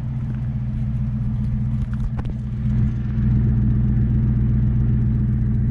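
Exhaust note of a 1999 Ford Crown Victoria's 4.6-litre V8 through Flowmaster mufflers on 2¾-inch tubing with the factory catalytic converters kept: a steady low-pitched running sound that gets louder about three seconds in.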